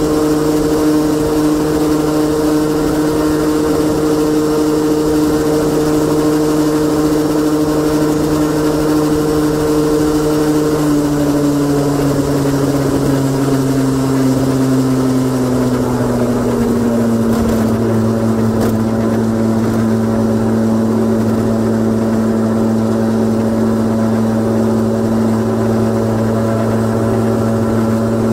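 Honda Gyro X TD01 two-stroke 50cc scooter engine idling with a deep, low sound, standing still. Partway through, the idle speed drops gradually over several seconds and then settles steady at a lower pitch.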